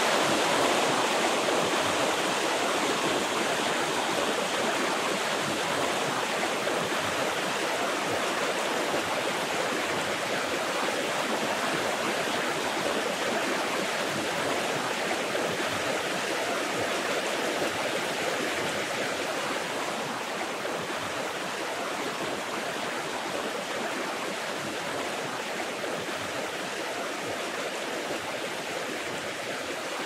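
Waterfall rushing steadily, a dense even noise of falling water that slowly grows a little quieter.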